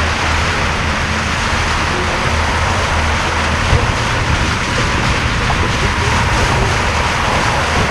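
Steady rush of wind and water noise from a jon boat running at speed under an electric outboard, with a low steady hum underneath.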